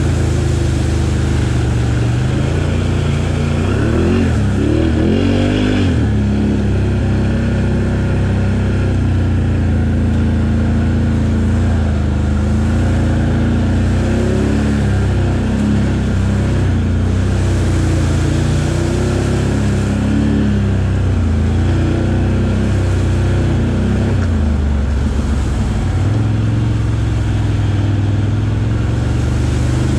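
Can-Am Outlander 1000R XMR ATV's V-twin engine running steadily under load on a trail ride, its pitch rising and falling with the throttle around four seconds in and again through the middle.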